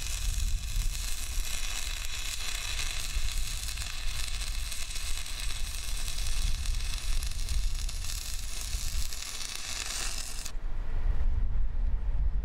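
Stick-welding arc with a 6010 electrode, crackling and sizzling steadily, then breaking off abruptly about ten seconds in. A low rumble runs underneath and carries on after the arc stops.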